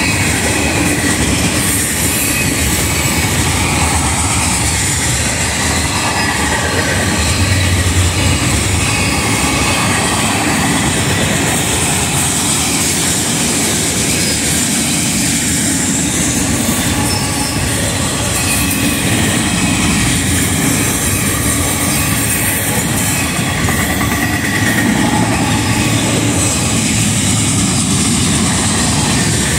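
Freight cars of a fast mixed freight train rolling past, loud and steady. Steel wheels clatter over the rail, with a steady high whine above the rumble.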